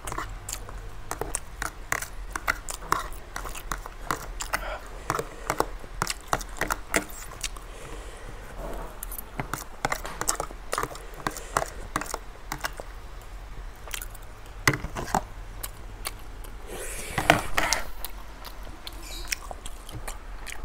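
Close-miked eating: a metal fork clicking and scraping against a plastic food container as the last of the ramen is gathered up, with chewing and mouth noises. Many short sharp clicks run throughout, with a louder noisy burst about three-quarters of the way through.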